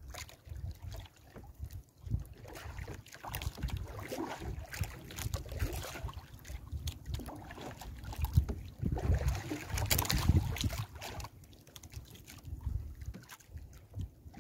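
A wet nylon gill net being pulled in and handled over the side of a wooden outrigger boat, with irregular rustling and small clicks, loudest about nine to eleven seconds in. Wind rumbles on the microphone underneath.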